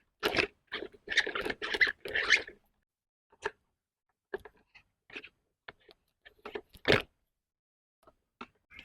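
Handling noise: about two seconds of rustling and scraping, then scattered short clicks and knocks, as of pressure-washer parts being handled and fitted.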